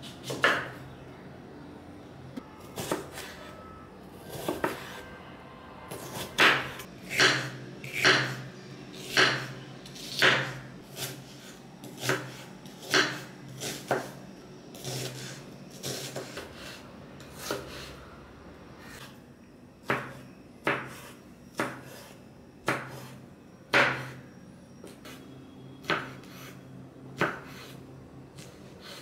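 Kitchen knife slicing onions and then green chillies on a wooden chopping board, each cut ending in a sharp knock of the blade on the board, at an uneven pace of roughly one cut a second.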